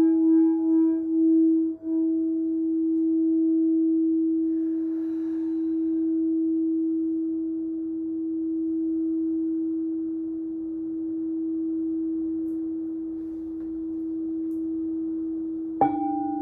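Crystal singing bowl holding one low, steady tone, pulsing at first and then sustained with slow swells in loudness. Near the end a sharp strike sets a second, higher bowl ringing over it.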